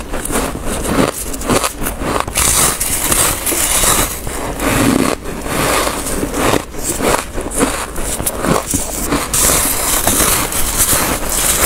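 Close-miked chewing and biting of soft freezer frost: a continuous dense crunching of ice in the mouth, with a fresh bite taken from the frost block.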